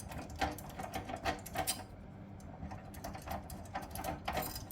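Light, irregular clicks and taps of small metal and plastic fuse-box parts being handled and worked loose, with a quieter spell about halfway through.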